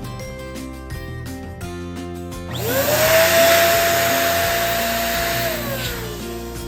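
Electric balloon pump switched on: a loud airy rush with a whine that rises quickly in pitch, runs steadily for about three seconds, then falls as the motor winds down after switch-off. Background music plays throughout.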